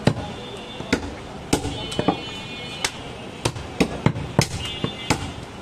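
A long butcher's knife chopping through a goat leg onto a wooden log chopping block: about ten sharp, irregular chops.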